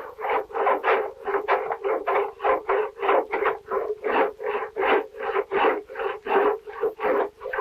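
A cooper's croze worked back and forth inside the end of an oak barrel, cutting the groove that will seat the barrel head. It makes rapid, even scraping strokes of steel on wood, about three or four a second.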